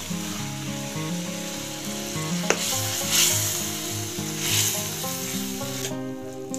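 Fried grasshoppers tipped into masala gravy sizzling in an iron kadai, then stirred in with a spoon. The sizzle swells twice as the spoon moves through, a little after halfway, with a sharp click of metal on the pan just before.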